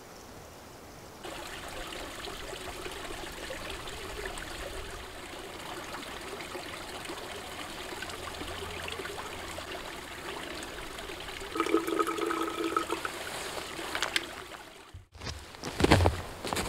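A small forest stream trickling steadily. Near the end come footsteps on snow.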